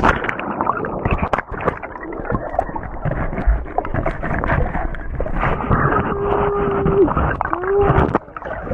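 Rushing waterfall water runs loud and steady. Near the end, two drawn-out cries from people break through: a long, level one, then a shorter rise and fall.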